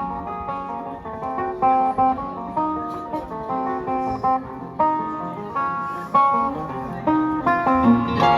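Live band playing an instrumental break: a guitar picks a melody of single plucked notes over the band.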